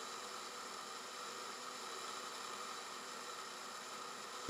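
Monarch 10EE lathe running under its retrofitted DC drive while a carbide tool takes a steady 50-thousandths cut on the bar: a faint, even hiss with a few steady whining tones.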